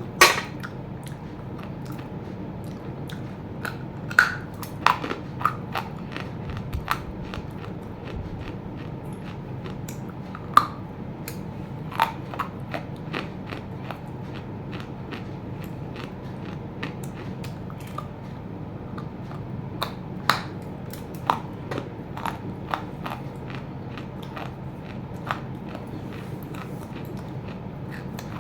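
A person biting and chewing very hard fully roasted clay: sharp, irregular cracks and crunches over a steady low hum, the loudest crack right at the start.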